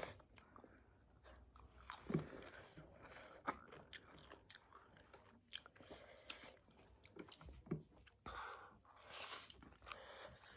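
Faint close-up eating sounds: a person chewing Chapagetti noodles, with scattered small wet smacks and clicks of the mouth, and a longer soft slurping hiss near the end.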